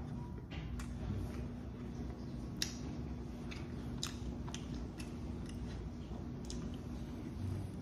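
Close-miked chewing and biting of crispy fried chicken: scattered short crunches and clicks over a steady low hum.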